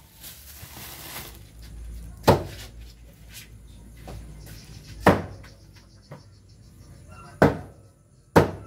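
A large knife chopping raw meat on a chopping board: four sharp, heavy chops, two to three seconds apart at first, the last two close together near the end.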